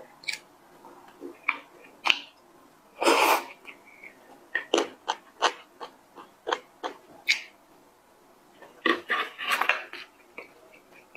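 Close-up mouth sounds of eating a soft pastry: a run of wet lip smacks and chewing clicks, with a longer noisy burst about three seconds in and a quick cluster of smacks near the end.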